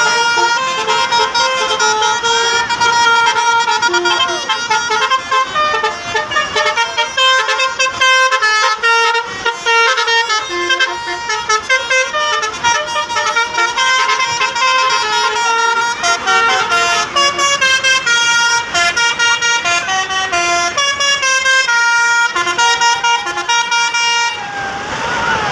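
Indonesian 'telolet' bus horns: multi-tone air horns sounding loud, rapid sequences of stepped notes that form short melodies, one after another.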